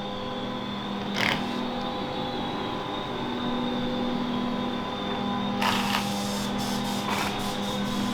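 Steady machinery hum in a workshop, several tones held level. A few short rushing noises break in about a second in and again near six and seven seconds, with light clicks near the end.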